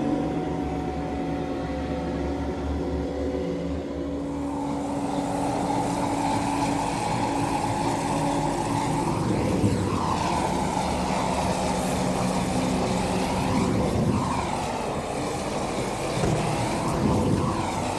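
Pyrophone (fire organ) holding a few steady tones, overtaken about four seconds in by the steady roar of large gas flames, which swells and sweeps, with brief louder peaks near ten and seventeen seconds.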